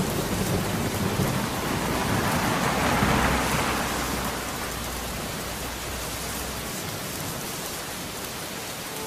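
Steady rain falling, with a roll of thunder that builds to its loudest about three seconds in and rumbles away over the next few seconds.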